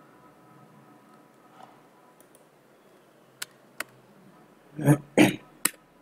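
Computer keyboard and mouse in use: two sharp clicks, then two louder thuds of keys being struck and a last click near the end, as a line of SQL is typed.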